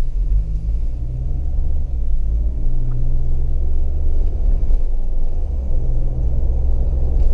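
Low engine and road rumble inside the cabin of a Mahindra Thar petrol automatic as it drives off, its 2.0-litre turbo-petrol engine's note shifting slightly in pitch now and then.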